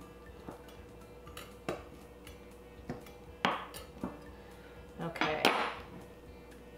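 A thin metal blade clinking and scraping against the sides of a glass dish as it is run around a block of chilled mashed potatoes to loosen it. There are irregular separate clinks, with the loudest scrapes about three and a half and five seconds in.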